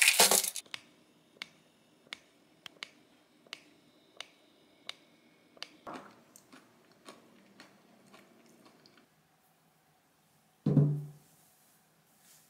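Scattered light clicks and crunches of someone eating granola and yogurt with a spoon from a ceramic bowl, about one or two a second, dying away after about nine seconds. A short, loud low thump comes near the end.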